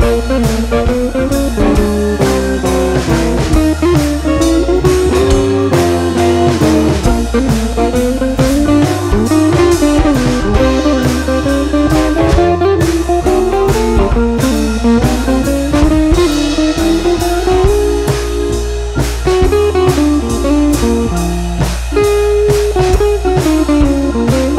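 Background music: guitar over drums with a steady beat.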